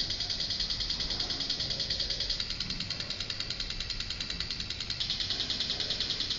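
Fast, even electronic ticking, a steady run of high clicks, from the text-display installation as words are wiped from its screens character by character. It starts suddenly.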